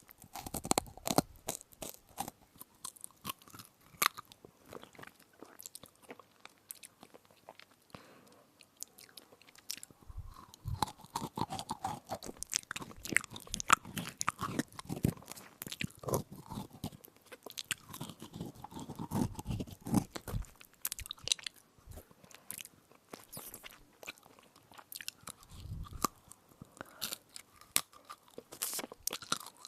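Close-miked crunchy chewing of an edible spoon: irregular sharp cracks and crunches as teeth bite and grind the hard biscuit-like spoon, with fuller chewing in stretches.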